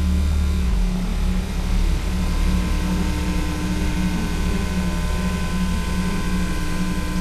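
Electronic noise drone: a loud, dense low hum with a few thin steady tones held over it, its low end shifting about a second in.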